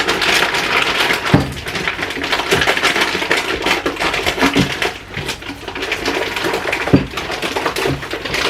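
Kitchen clatter of dishes and utensils knocking and scraping, with a few sharper knocks.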